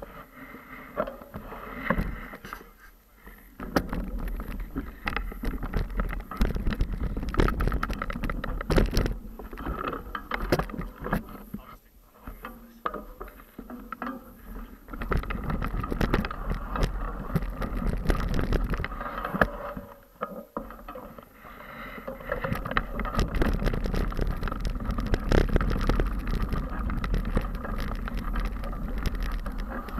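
Mountain bike tyres rolling and crunching over loose gravel and slate rock, the bike rattling and clattering over the bumps, with wind buffeting the camera microphone. The sound drops away briefly a few times.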